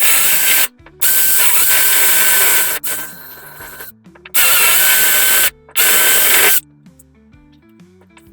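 Power drill run in four short bursts with a steady motor whine, backing out the screw and drilling out the pop rivets that hold a sheet-metal power-strip bracket in a toolbox drawer.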